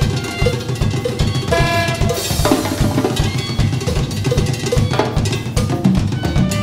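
Saxophone, drum kit and hand percussion playing together: a steady bass-drum pulse under held saxophone notes, with a cymbal crash about two seconds in.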